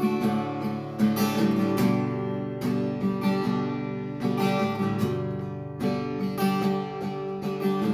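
Acoustic guitar strumming chords at a slow, even pace, a fresh strum roughly every second, as the instrumental introduction of a ballad before the vocals come in.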